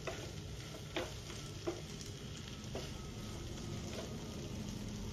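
Smoked pork and potato fry sizzling in a non-stick frying pan, with a wooden spatula stirring and scraping through it in about five separate strokes.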